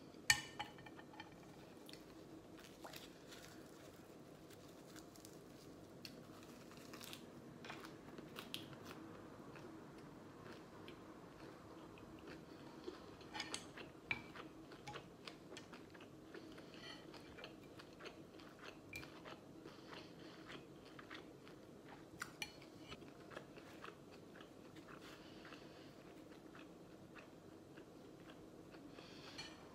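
Faint chewing and crunching of a lettuce and perilla-leaf wrap (ssam), with scattered short clicks and a sharp one just after the start, over a steady low room hum.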